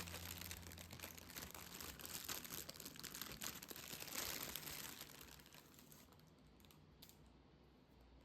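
Wrapping crinkling and rustling as it is handled. The sound is dense for about five seconds, then dies away into a few light clicks.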